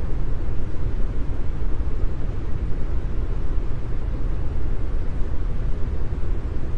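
Brown noise: a steady, deep rushing noise, strongest in the bass and fading toward the treble, with no tones or changes.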